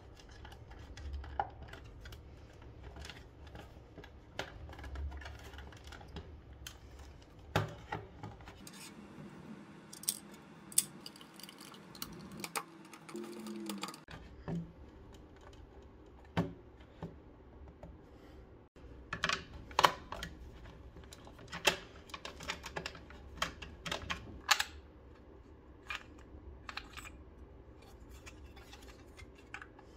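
Irregular plastic clicks and knocks as a plastic alarm clock is handled and taken apart: a screwdriver working at its screws and the housing being pried open. The clicks come sharpest and most often in the second half.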